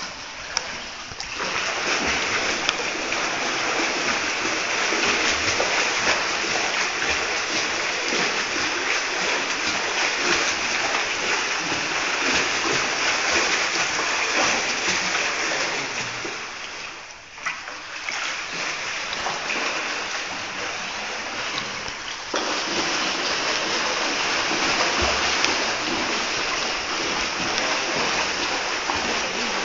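Steady splashing and sloshing of swimming-pool water. It dips briefly about 17 seconds in and comes back up about 22 seconds in.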